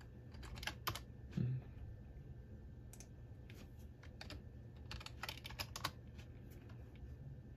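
Keystrokes on a computer keyboard in short bursts, a few quick clicks in the first second and another run about 3 to 6 seconds in, as short drive-letter commands are typed at a command prompt. A brief low sound about a second and a half in, over a faint steady low hum.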